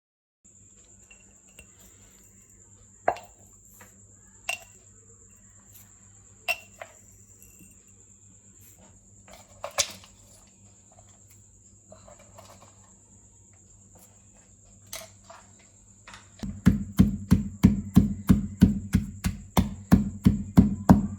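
A few separate sharp knocks, then about three-quarters of the way in a fast, even knocking begins, roughly four or five strikes a second, like food being chopped or pounded in a kitchen. A constant high-pitched whine and a low hum sit under it throughout.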